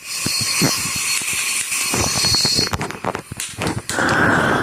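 A lit string of firecrackers: the fuse sizzles with scattered crackling pops, then a steady rushing noise sets in about four seconds in.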